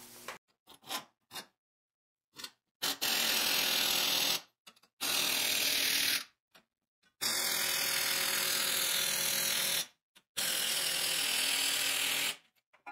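Impact wrench hammering on the leaf-spring U-bolt nuts of a 1985 Chevrolet K10 in four runs, each one to three seconds long, with short breaks between them.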